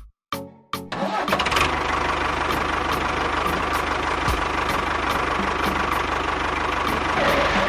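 A small engine starts about a second in and then runs steadily, with a fast, even low firing rhythm under a hiss.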